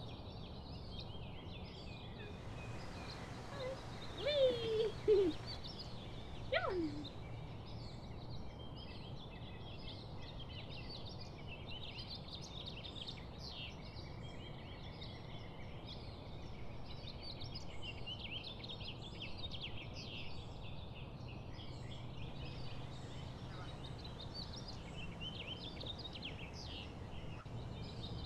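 Woodland ambience: many small birds chirping and singing over a steady low background. Between about four and seven seconds in come a few louder short calls that glide downward in pitch.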